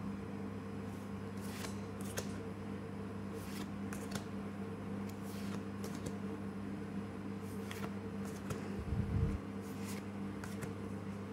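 Trading cards being gone through one by one from a freshly opened booster pack: short, soft swishes each time a card is slid off the front of the stack, over a steady low hum. A low bump, the loudest sound, comes near the end.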